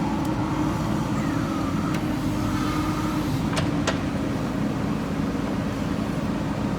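JCB backhoe loader's diesel engine running steadily, with two short sharp clicks a little past halfway.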